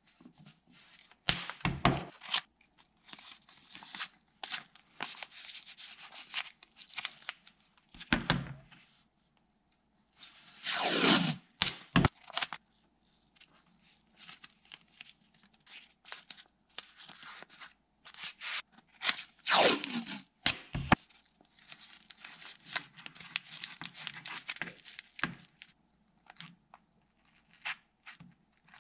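Blue painter's tape being pulled off the roll in several screeching strips, each long pull falling in pitch, and torn off. In between, softer crinkling and rubbing as the strips are pressed and smoothed by hand.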